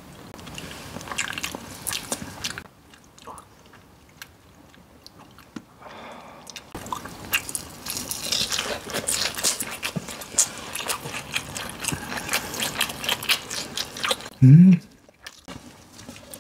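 Biting and chewing through the crisp breaded crust of a deep-fried pork cutlet, in two spells of crunching with a quieter gap between; the second spell is longer and denser. Near the end comes a short voiced 'mm', the loudest sound.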